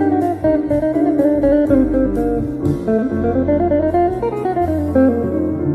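Guitar playing a solo: single-note melodic phrases that step up and down, over held low bass notes.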